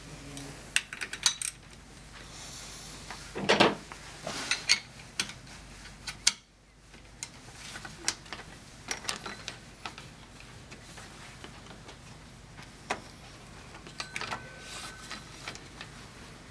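A rubber drive belt being worked by hand over the pulleys of an engine's accessory drive and a hydraulic pump's electromagnetic clutch pulley. Irregular clicks, knocks and rubbing, busiest in the first six seconds and sparser after.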